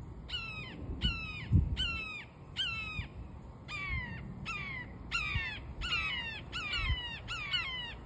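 Fledgling red-shouldered hawks calling over and over: about a dozen loud, downward-slurred 'kee-ah' screams, coming faster and overlapping toward the end. A few low bumps on the microphone come between the calls.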